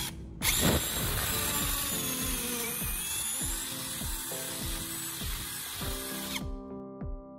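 Cordless drill boring a hole through a wooden handle: it stops for a moment at the start, starts again under load and runs steadily for about six seconds, then stops near the end.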